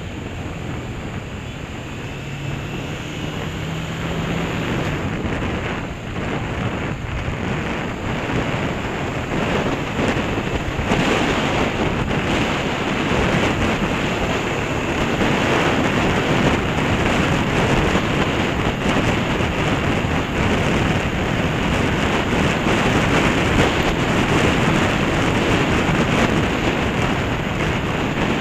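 Wind rushing over the microphone of a moving Honda CB500 motorcycle, a steady noisy rush that grows louder about ten seconds in as the bike picks up speed.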